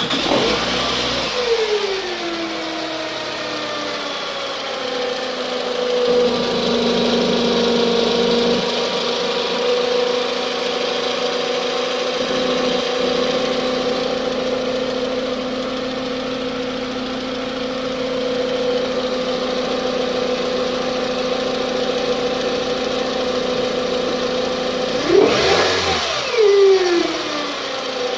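Toyota Camry 2.4-litre four-cylinder engine idling with a steady supercharger-like whine, settling down from a start-up flare in the first couple of seconds. Near the end it is revved briefly twice, and the whine rises and falls with engine speed.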